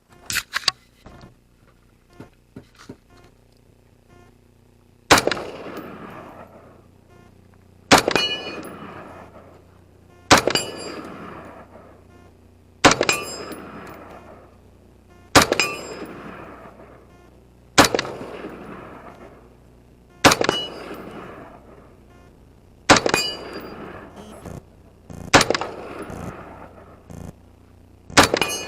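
A series of about ten gunshots, one every two and a half seconds or so, each with a metallic ring and an echoing tail, typical of steel targets being hit. A few lighter clicks come before the first shot.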